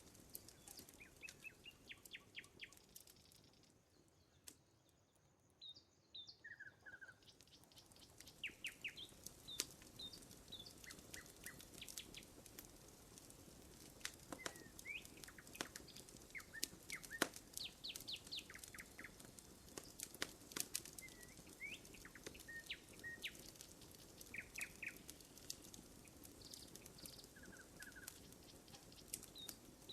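Wood campfire crackling with scattered sharp pops, while songbirds chirp and trill in the background. The crackling thins out briefly about four seconds in.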